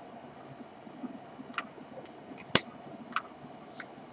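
Four short, sharp clicks of playing cards being handled as the next card is pulled from the deck, the loudest about two and a half seconds in.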